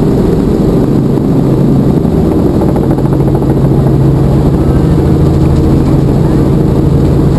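Helicopter engine and rotor heard from inside the cabin: a loud, steady drone with a low hum and a rapid rotor beat underneath.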